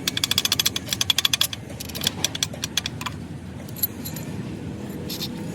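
Rapid metallic clicking of hand tools on engine parts: a fast run of clicks in the first second and a half, a few scattered clicks around two to three seconds, then a lull, over a steady low background rumble.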